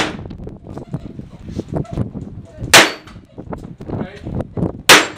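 Revolver firing single shots about two seconds apart: sharp cracks near the start, about three seconds in and again near the end.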